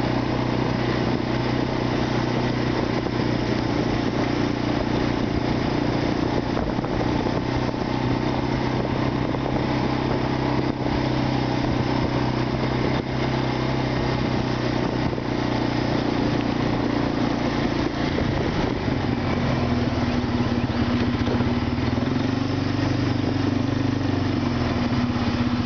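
ATV engine running steadily at low speed, then settling to idle near the end as the machine comes to a stop.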